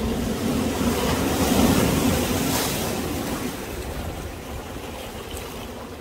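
Sea waves surging in, swelling to a peak about two seconds in and then ebbing away.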